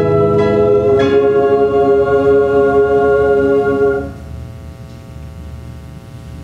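Chamber choir singing a sustained chord, with a new chord entering about a second in. The chord is cut off together about four seconds in, leaving the hall's reverberation and a low hum.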